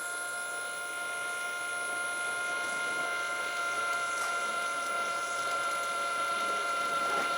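Electric hydraulic pump of an RC excavator running with a steady whine, pumping the oil out of the tank; it gets slightly louder toward the end.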